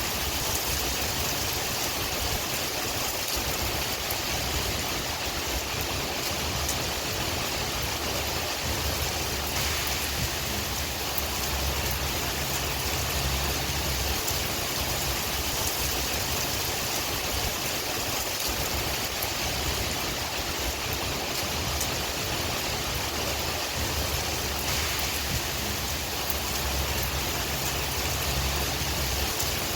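Steady rain falling with wind: an even hiss with a low rumble underneath.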